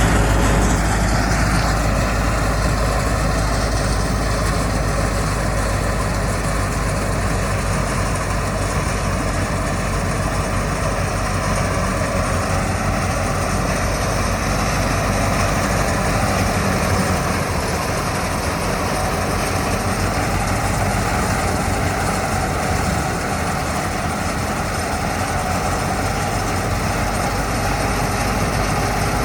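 Engine of wheat-harvesting machinery running steadily, with a constant low drone and a dense mechanical hum over it.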